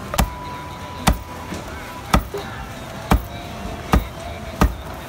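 Cleaver chopping braised duck on a thick wooden chopping block: six sharp chops about a second apart, coming a little quicker near the end, over a steady background hum.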